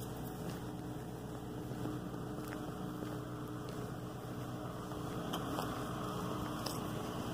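A steady low engine hum with a few faint clicks, growing a little louder near the end.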